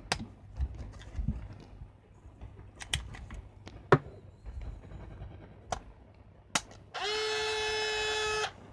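Pentax Espio 140M compact film camera being worked by hand: several sharp plastic clicks, the loudest about four seconds in as the film back pops open. About seven seconds in, the camera's small electric motor whines steadily for about a second and a half, then stops abruptly.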